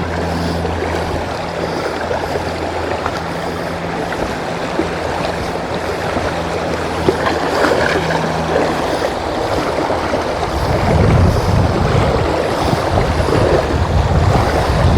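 Shallow creek running over rocks, a steady rush of water. From about ten seconds in, wind buffets the microphone with uneven low rumbling.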